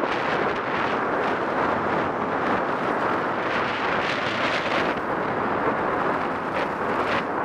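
Wind rushing over a body-worn camera's microphone as a skier descends, mixed with skis sliding over packed snow, a steady noise with brief brighter scrapes now and then.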